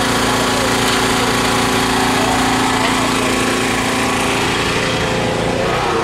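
Portable gasoline generator (MX4500E) running steadily at a constant engine speed, its pitch unchanging.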